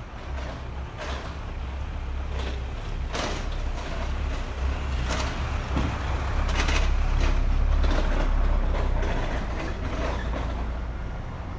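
A motor vehicle passing close by, its deep engine rumble swelling to a peak about two-thirds of the way through and then fading, with a few sharp knocks and rattles over it.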